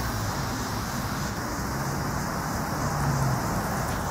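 Steady road traffic noise: a continuous rush from the street with a low engine hum underneath.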